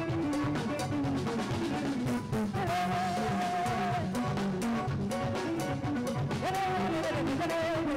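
Live Brazilian band playing an instrumental passage between verses: drum kit and guitar keep a steady beat under moving bass notes, with a held melody line about three seconds in and again near the end.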